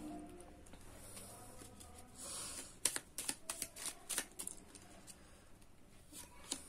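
Tarot deck being shuffled by hand, faint: a short papery rustle about two seconds in, then a quick run of card snaps and clicks for a second or two, with a few scattered clicks after.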